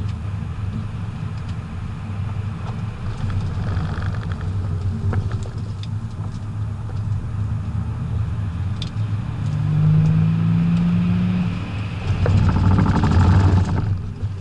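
BMW 535d's twin-turbo straight-six diesel pulling at speed, heard from inside the cabin over steady road noise. A rising tone joins in for a couple of seconds past the middle. Near the end a louder surge builds and cuts off sharply.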